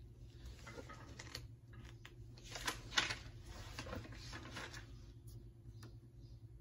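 Faint scattered clicks and taps on a laptop keyboard, coming in small clusters, over a low steady hum.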